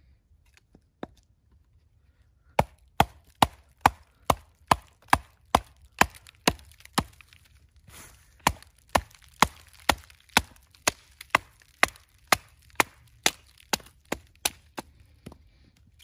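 Batoning: a short wooden log struck over and over on the spine of a knife blade, driving it down through a small upright stick to split it. Sharp wooden knocks at a steady two to three a second begin a couple of seconds in, with a brief pause about halfway.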